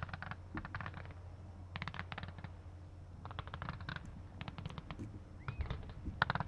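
Faint fireworks: repeated quick clusters of small pops and crackles, about one cluster every second.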